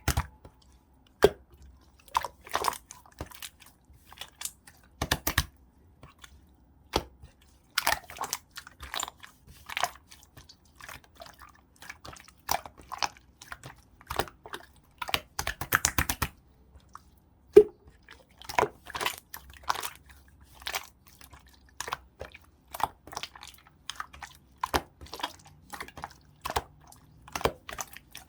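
Red-orange mixed clear slime being squished and folded by hand, making sticky clicks and small pops in irregular clusters, with one sharp pop just past the middle.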